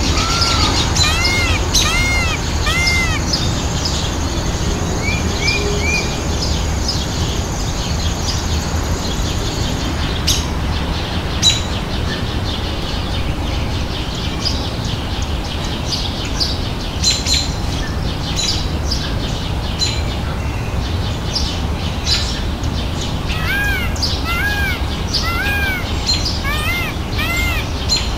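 Birds calling: short arched calls repeated in quick sets of three near the start and again over the last five seconds, with scattered high chirps in between, over a steady low background noise.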